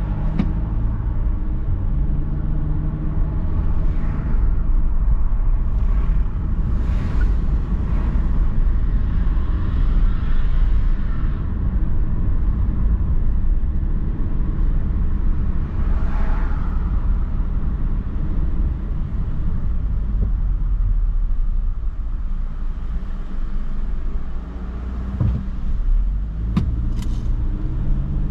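Car driving at town speed, heard from inside the cabin: a steady low rumble of engine and tyre noise. The engine's hum comes through more distinctly near the start and again near the end.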